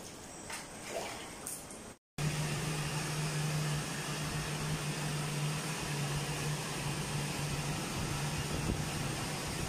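About two seconds in, a pet blow dryer starts abruptly and blows steadily on a wet dog's coat: a constant rush of air with a low hum. Before it there are faint water sounds from the bath.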